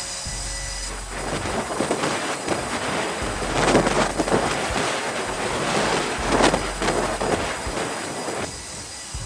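Aircraft carrier flight deck noise: a steady rushing roar with a faint high whine, swelling louder about four seconds in and again at six and a half.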